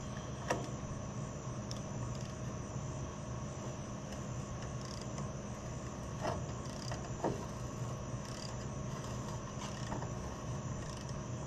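A few faint metallic clicks of a 3/4-inch wrench working a bolt loose on a tractor's light bracket, over a steady low hum.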